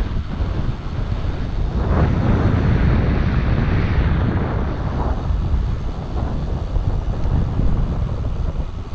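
Wind buffeting the microphone of a camera on a bicycle speeding downhill: a loud, steady low rumble that swells a few times, around two and five seconds in.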